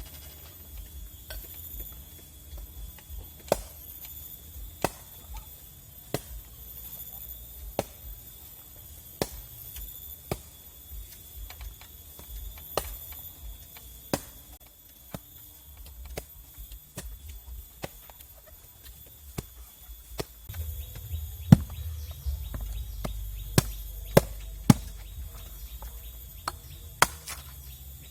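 Repeated single chopping strokes, a blade striking something solid, roughly one every second or so. The strokes come closer together and louder in the last third.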